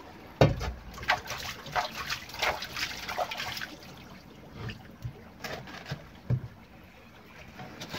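A heavy thud about half a second in, then water splashing and sloshing for a few seconds as hands work in a metal bucket of water on a wet wooden deck. A few lighter knocks follow later.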